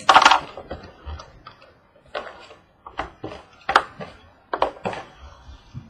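Trading cards and their packaging being handled on a table: a short loud rustle at the start, then a scattering of sharp clicks and taps as cards and boxes are moved.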